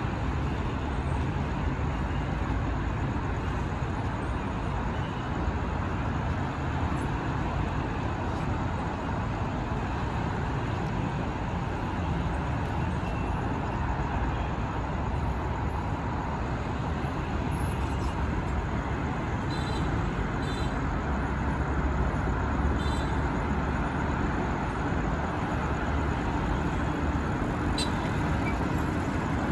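Steady, unbroken low rumble of vehicle noise, with no separate knocks, horn or other distinct events.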